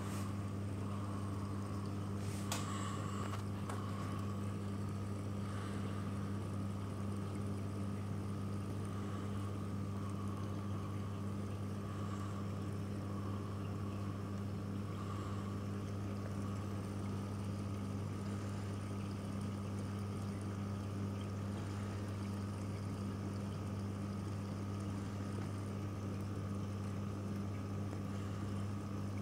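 Steady low electric hum of reef aquarium pumps, with a fainter higher whine above it.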